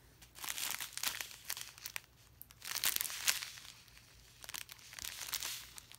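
Clear plastic packaging crinkling as a diamond-painting kit's bagged strips of drill packets are picked up and handled, in three bouts of crackling.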